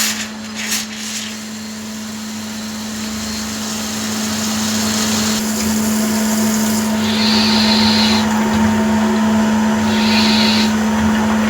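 CNC lathe turning a D2 tool-steel part: a steady machine hum with cutting hiss. A few knocks in the first second, and short high hissing bursts about seven and ten seconds in.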